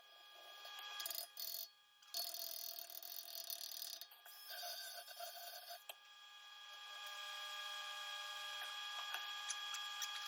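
Angle grinder running against the steel of an auger tooth to clean up a cracked weld: a steady ringing whine over grinding hiss. It breaks off briefly a few times early on and grows louder over the last few seconds.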